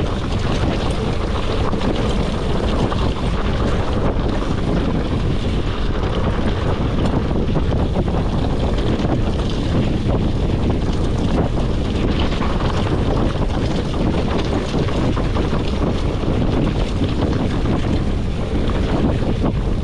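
Wind buffeting the camera microphone as a mountain bike rolls fast over loose gravel. The knobby tyres crunch on stones and the bike rattles, with many small clicks throughout.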